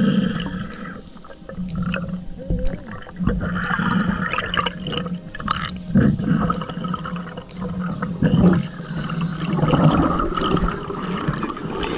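Underwater sound of a freedive heard through the camera: water movement and bubbling, with a low steady hum that comes and goes in stretches of a few seconds.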